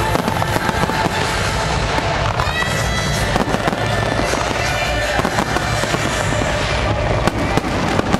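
Aerial fireworks display: dense, continuous crackling and popping of bursting shells, with a short whistle about two and a half seconds in.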